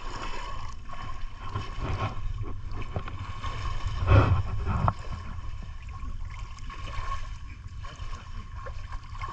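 Water sloshing and splashing in a river, with a louder splash about four seconds in.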